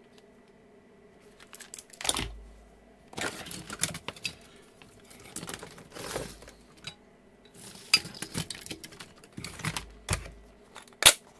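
Handling noise on a workbench as multimeter test leads and a multimeter are picked up and moved about: scattered rustles, light clicks and knocks, with one sharp click near the end.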